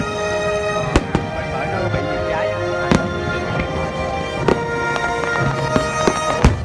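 Fireworks going off as separate sharp bangs a second or two apart, over continuous background music.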